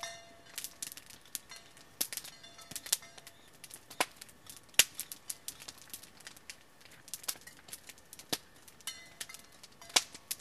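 Small wood fire crackling, with irregular sharp pops.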